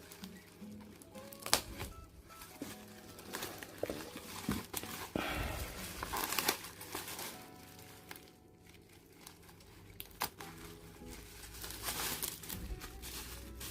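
Plastic packaging crinkling and rustling as a boxed figure is handled and unwrapped from its protective plastic, with scattered sharp clicks, the sharpest about one and a half seconds in.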